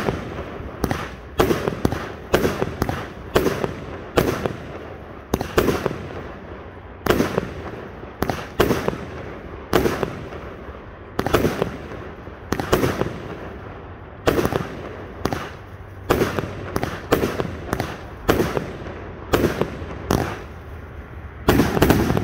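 A 19-shot consumer firework cake firing: a long run of sharp launch thumps and aerial bursts, a bang about every half second to a second.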